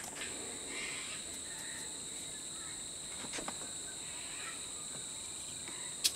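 A steady high-pitched whine, with two light knocks as small wooden pattern pieces are handled on the workbench, one in the middle and one near the end.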